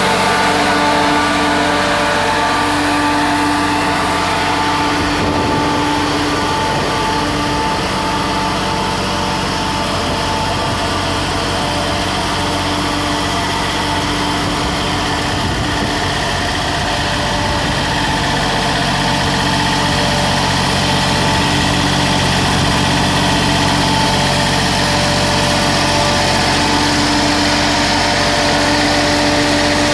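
Isuzu diesel engine of a trailer-mounted construction heater idling steadily.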